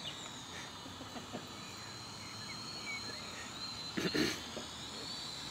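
Syma X5C quadcopter's small motors and propellers whining at a high, steady pitch that wavers slightly, with faint bird chirps and a brief louder noise about four seconds in.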